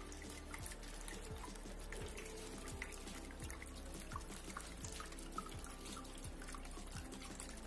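Small homemade indoor fountain running: water trickling and dripping steadily, with many small drips and plinks.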